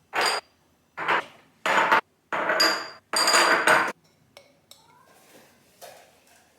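Items from a spice-rack delivery being handled and unpacked: five quick clattering scrapes over about four seconds, some with a faint high ring, then a few light taps.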